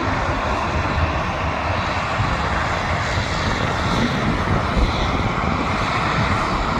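Twin turboprop engines of a Beechcraft King Air 200C running steadily.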